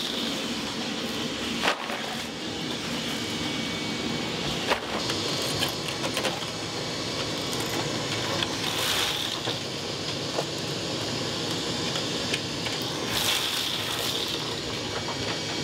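Shop vacuum running steadily as its hose sucks up broken mortar and tile debris from a torn-out shower pan. A few sharp knocks and brief rattles of debris going up the hose break through now and then.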